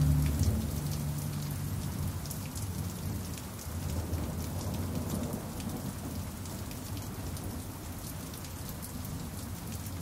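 Steady rain falling, with scattered drops ticking and a low rumble of distant thunder beneath it. The last pan drum notes die away in the first second.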